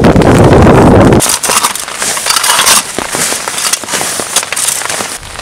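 Strong wind buffeting the microphone and a flapping tarp for about the first second, cutting off abruptly. Then a small shovel scrapes and tosses loose forest soil and needles onto a tarp's edge in irregular crackly scrapes.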